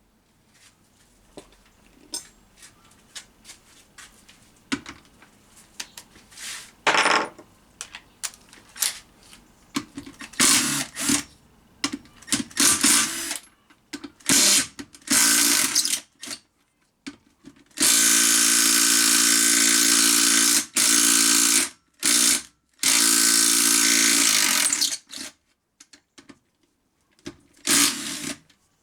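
A power tool running in repeated bursts of a few seconds each, spinning bolts out of a gearbox casing, with clicks and knocks of metal parts being handled between bursts.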